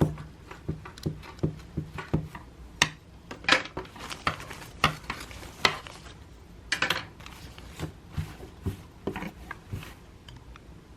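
Dishes and utensils clinking and tapping irregularly, about one or two knocks a second, over a faint steady low hum.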